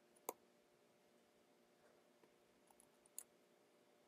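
Near silence broken by computer mouse clicks: a sharp click about a third of a second in and a fainter one about three seconds in.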